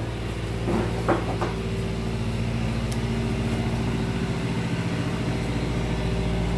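A steady low hum made of several even tones runs throughout, with a few brief knocks and clicks about a second in as the multimeter and its probes are handled on the bench.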